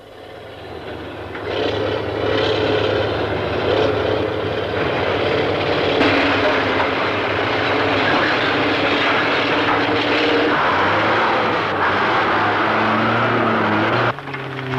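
Heavy diesel earthmoving machinery working: a loud, steady engine drone that builds over the first couple of seconds, from excavators loading rock into dump trucks. Near the end it cuts abruptly to another engine's steadier note.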